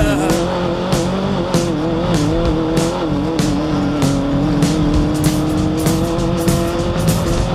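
Off-road race car engine running under load, its pitch wavering and then climbing slowly, mixed with background music with a steady beat.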